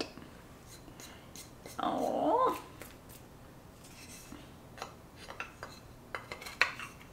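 Light clicks and taps of small items being handled during an unboxing, with a drawn-out, pitch-bending 'aww' about two seconds in.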